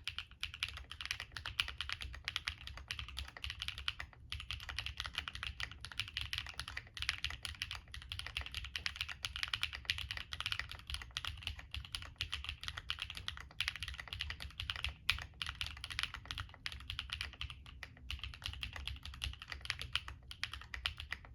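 Steady typing on a mechanical keyboard with stock HMX Purple Dawn linear switches, a polypropylene plate with plate and case foam, and double-shot PBT and DCX keycaps: a rapid, continuous run of keystrokes with a few brief pauses.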